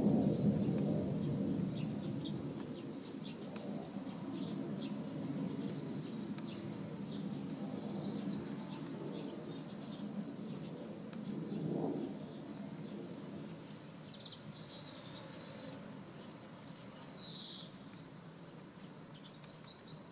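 Low background rumble, loudest at the start and slowly fading, with short bird chirps scattered through and a falling chirp near the end.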